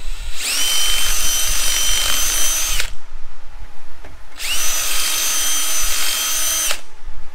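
Cordless drill reaming out slightly tight screw holes in a steel panel, with the same bit that drilled them. It runs twice for about two and a half seconds each time, quickly winding up to a steady high whine and stopping abruptly.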